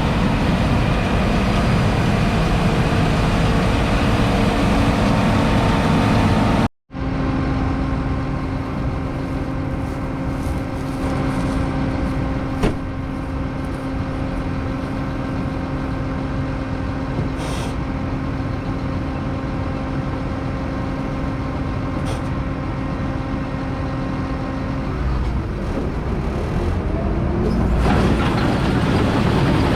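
Combine harvester running in a wheat field: a steady machine drone with a constant hum. It cuts off abruptly for a moment about seven seconds in, then resumes, and its tone shifts near the end.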